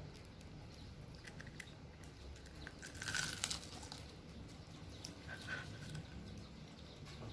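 Faint rustling and small clicks of the thin insulated wires of a UTP network cable being handled and straightened by hand, with a louder crinkly handling noise about three seconds in, over a low steady hum.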